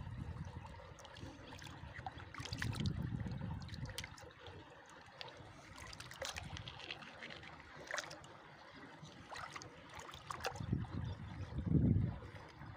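Hands splashing and sloshing in shallow water while picking kupang shellfish, with scattered small clicks of shells knocking together. Two louder low sloshing rumbles, one about two and a half seconds in and one near the end.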